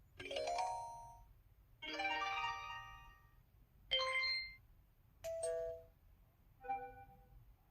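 A run of five short electronic chime tones from a SKY Vega Racer phone's built-in effect sounds. Each is a different brief ringing jingle of a few notes, played one after another about every second or so.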